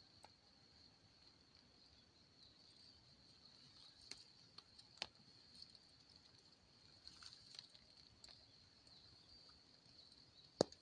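Near silence: a faint steady high hiss with a few soft, scattered taps, the sharpest one near the end.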